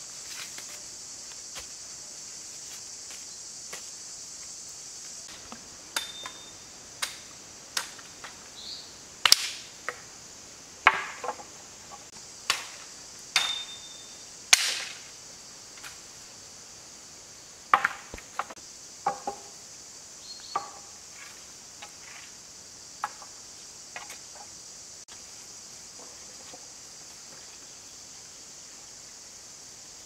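Dry dead branches cracking and snapping as they are broken: about a dozen sharp cracks through the middle, some in quick succession. A steady high hiss of insects runs underneath.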